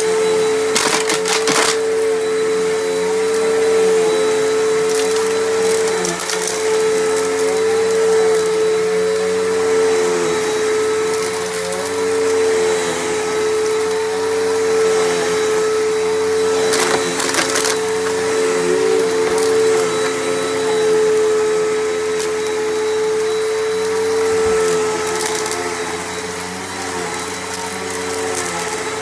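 Bissell Powerforce Helix Turbo upright vacuum running on carpet, its motor holding a steady whine while the level swells gently with the passes. A few brief crackles, about a second in, midway and near the end, as debris is sucked up from the dirty carpet.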